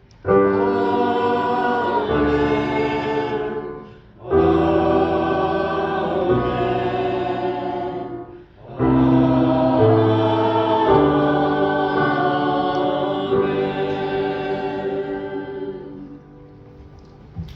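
Choir singing a closing sung response in three held phrases, with short breaths between them; the last phrase is the longest and dies away near the end.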